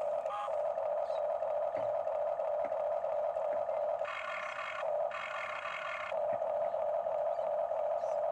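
Electric gear motors of a Huina radio-controlled toy excavator whining steadily as the boom and bucket move. A higher, fuller whine comes in twice for about a second each, about four and five seconds in, as other motors join.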